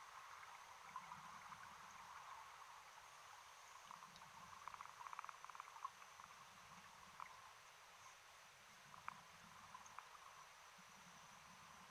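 Faint underwater sound picked up by a submerged camera: a soft hiss with scattered crackles and clicks, and a brief flurry of rapid clicks about five seconds in.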